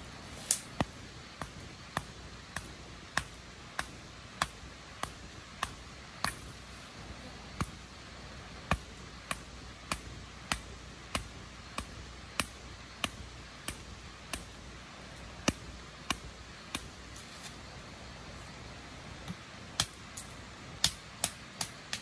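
Repeated sharp knocks of something being struck at ground level, about one or two a second, with a pause of a couple of seconds late on and a quicker run of strikes near the end.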